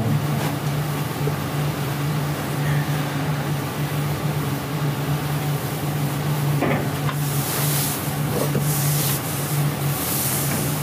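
Steady low hum of the interview-room recording, with a brief rustle or bump as someone moves past the camera a little over halfway through.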